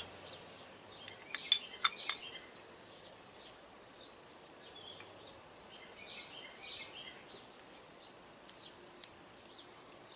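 Three sharp metallic clicks in quick succession, about a second and a half to two seconds in, as the brake pads and their spring are handled in a motorcycle front brake caliper. Faint bird chirps sound in the background further on.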